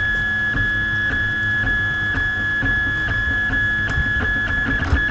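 Printrbot 3D printer running through a print: a steady high whine with faint regular ticks about twice a second.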